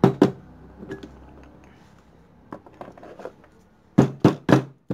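Motorcycle crankshaft being set into the crankcase bearing by hand: light metal clicks and clinks of parts being seated, then four sharp knocks in quick succession near the end.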